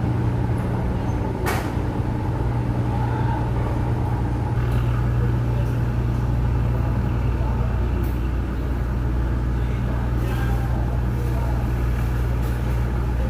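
A ship's engine running with a steady low drone, under indistinct voices, with one sharp click about a second and a half in.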